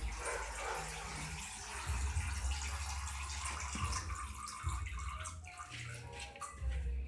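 Water running and splashing from a tap, an even hiss with irregular low muffled bumps underneath.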